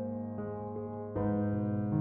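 Background piano music with soft held notes; a new chord comes in a little past a second in.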